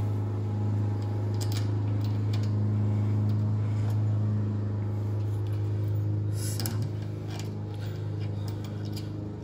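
Steady low mechanical hum of a fan or motor, with a few light clicks and a short metallic rattle about six and a half seconds in.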